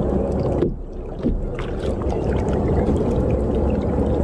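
Steady rumbling wind and water noise around a kayak, dipping briefly just under a second in, with faint light ticks over it.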